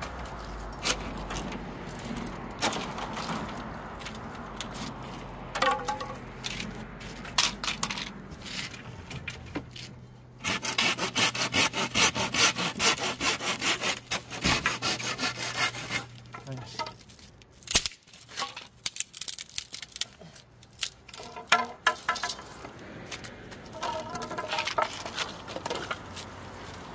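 Small hand pruning saw cutting through dry bamboo poles in quick back-and-forth strokes, loudest in a steady run of strokes from about ten to sixteen seconds in. Near the end, bamboo poles knock together as they are gathered up.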